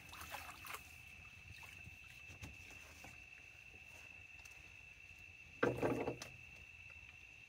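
A hooked flathead catfish splashing at the water's surface beside a boat as it is steered toward a landing net: one short, loud burst of splashing a little past halfway, with small water sounds around it and a steady high-pitched tone underneath.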